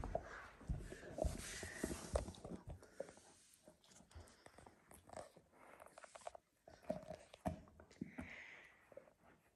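Alaskan Malamute gnawing and chewing a hard, meat-filled bone: irregular clicks and scrapes of teeth on the bone, busiest in the first few seconds and sparser after.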